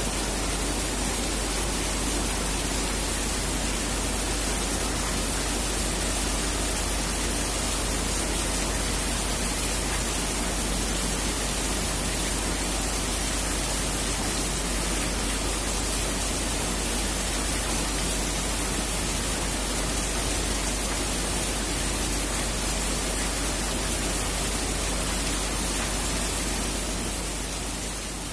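Heavy, steady rain: a dense, even hiss with a low rumble underneath, fading out near the end.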